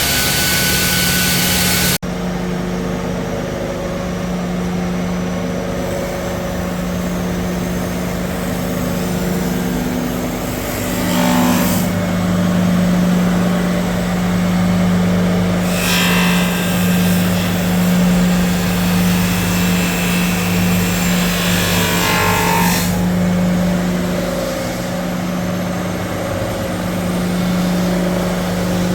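Conveyor-fed abrasive belt grinder running with a steady electric-motor hum. Three brief bursts of harsher grinding noise rise over the hum about a second each. A loud hiss at the very start cuts off abruptly after about two seconds.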